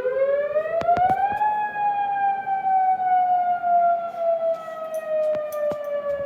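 Tsunami warning siren sounding its monthly test: one long wail whose pitch climbs for about a second and a half, then slowly sinks. A few sharp clicks sound close by over it.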